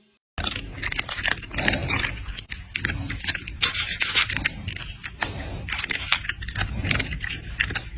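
Loud, close crunching and crackling with many sharp clicks, starting suddenly and stopping abruptly.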